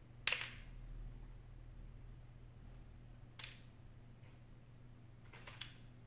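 Three short, sharp clicks spread over a few seconds, the first the loudest with a brief ring after it, over a steady low electrical hum.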